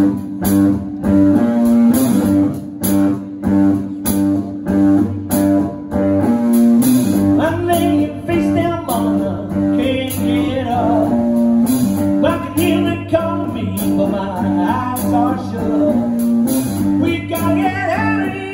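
Live blues band playing: drums keep a steady beat under a repeating electric guitar and bass riff, and about seven seconds in a wavering lead line comes in on top.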